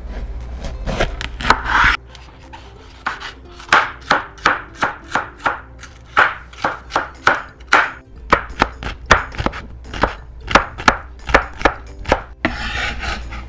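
Chef's knife cutting a green bell pepper on a wooden cutting board. Heavier crunching cuts through the pepper come first, then a run of quick dicing strokes, about two to three a second, each ending in a tap of the blade on the board.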